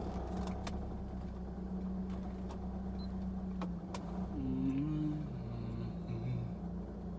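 Car running, heard from inside the cabin: a steady low engine hum with a few light clicks.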